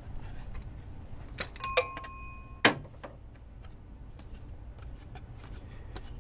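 Metal hand tools clinking and knocking as they are handled: two sharp clinks, the second ringing on briefly with a metallic tone, then a heavier clank about a second later, followed by faint small ticks.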